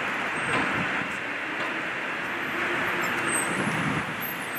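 City street traffic noise: a steady wash of car engines and tyres on the road.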